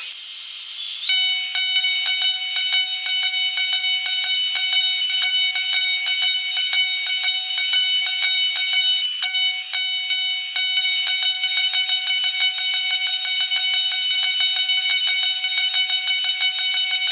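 Railway level-crossing warning bell ringing, a rapid, even repetition of the same ringing tone that starts about a second in, after a brief different chiming sound.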